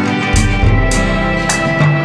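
Background music with guitar and a steady beat; a deep bass note comes in about a third of a second in.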